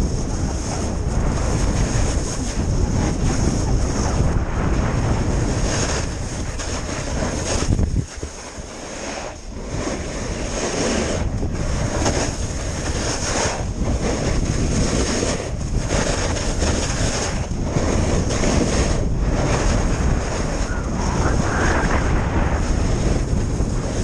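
Wind rushing and buffeting on the microphone of a camera carried by a skier at speed, with the scrape of skis on snow, surging every second or two. It drops off sharply for a couple of seconds about a third of the way through, then comes back.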